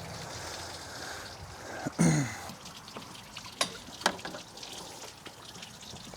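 Water trickling steadily from the loosened hose plumbing. About two seconds in comes a short sound falling in pitch, then a few sharp clicks as the fittings are handled.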